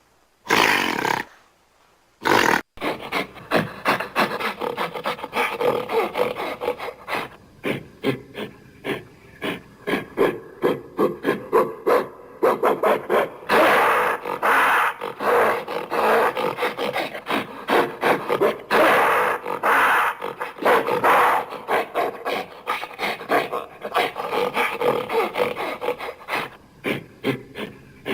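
Gorilla vocalizing: after two short calls near the start, a long run of rough, rapid calls, several a second, with hardly a pause.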